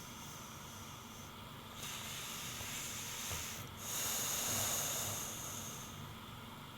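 English bulldog snoring in its sleep: a run of hissing, wheezy breaths, each with a thin high whistle over it. The loudest breath comes about four seconds in.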